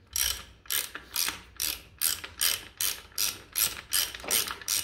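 Hand ratchet wrench worked in quick, even strokes, about two and a half a second, its pawl rasping on each swing as a bolt is wound in on the Willys MB's brake and hub assembly.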